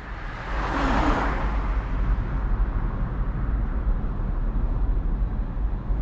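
A car driving past: a whoosh of road and engine noise that swells about a second in, then settles into a steady low rumble.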